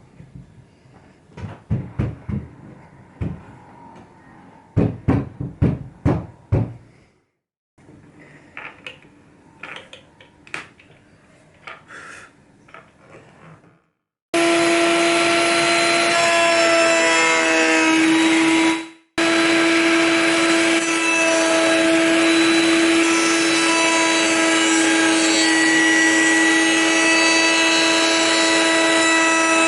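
Wooden knocks and clatter of workpieces being handled. About halfway through, a loud steady motor-like drone with a constant hum starts, drops out briefly and carries on.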